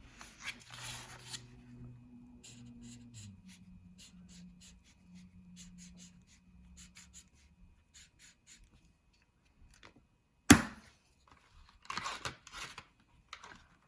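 A coloring tool scribbling on paper as a section is filled in with yellow: a long scratchy stroke, then a run of short quick strokes. About ten seconds in there is one sharp click, then a few more scribbling strokes.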